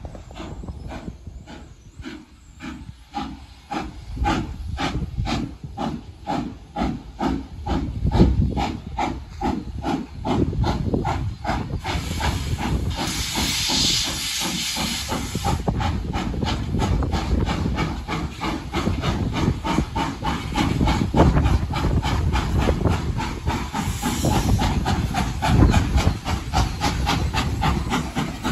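Morehead & North Fork No. 12, a 0-6-0 steam locomotive, working a freight train toward the listener: an even, quick beat of exhaust chuffs that grows louder as it approaches. A loud hiss of steam venting low at the front of the engine, from the cylinder cocks, comes in about twelve seconds in and lasts a few seconds, with a shorter hiss near the end.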